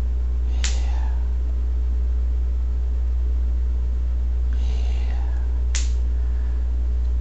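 Steady low hum, with two short sharp clicks, one about half a second in and one near the end.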